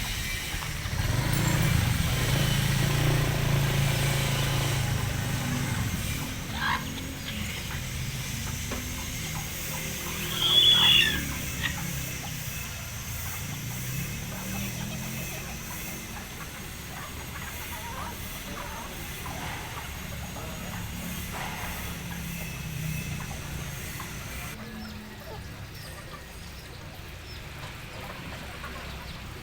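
Bantam chickens calling in a yard, with one short, loud, high-pitched call that drops in pitch about ten seconds in. A low rumble runs under the first few seconds.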